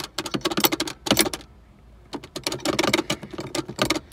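Stock Acura RSX shift box rattling and clacking as its shift lever is wiggled back and forth by hand with the shifter cables disconnected, in two bursts of rapid clicking with a short pause between. The loose rattle is the play in the stock box.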